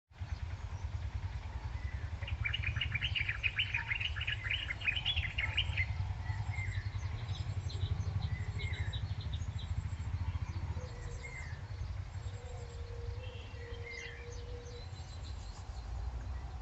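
Small birds chirping: a fast run of chirps over the first few seconds, then scattered single calls, over a steady low rumble.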